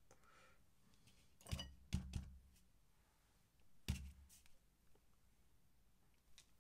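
Light knocks and taps of a paintbrush against an ink bottle while ink is worked onto paper: three quick knocks about a second and a half to two seconds in, and one more near four seconds in, in an otherwise quiet room.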